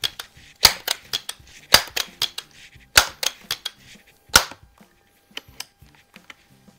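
Crosman Model 1400 multi-pump .22 air rifle being pumped: the forearm pump lever is swung open and snapped shut about four times, each stroke ending in a sharp clack, with smaller clicks between. Near the end only a few light clicks are heard as the action is handled.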